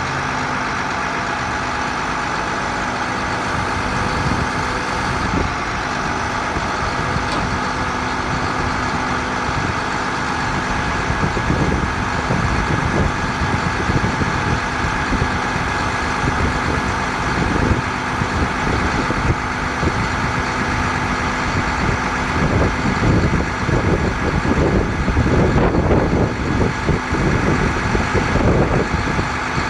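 Truck engine idling steadily, with a constant mechanical hum. From about ten seconds in, uneven low rumbles join it and grow stronger towards the end.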